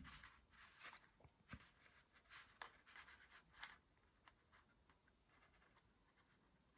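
Near silence, with faint, scattered small taps and rubbing of hands handling small model parts during the first few seconds.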